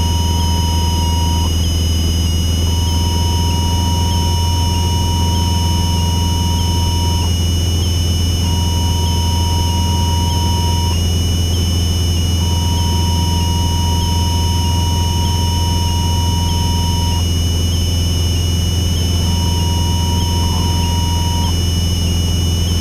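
Cessna 172RG's stall warning horn sounding a steady tone that comes and goes in stretches of one to five seconds, as the plane is flown slowly near the stall. Under it, the steady drone of the Lycoming O-360 engine and propeller in the cockpit.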